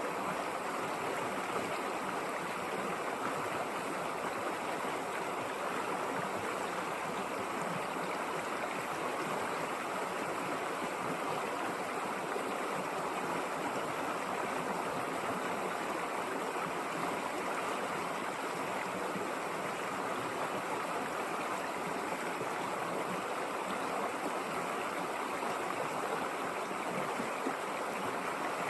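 River water rushing and flowing, a steady, unbroken stream sound.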